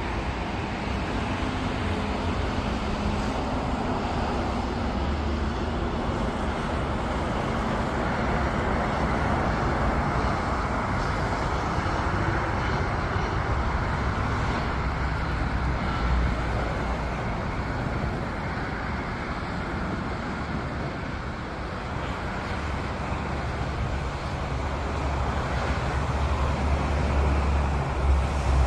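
Airbus A321 jet engines on landing approach: a steady jet rush that swells as the aircraft draws near, with a deeper rumble building near the end.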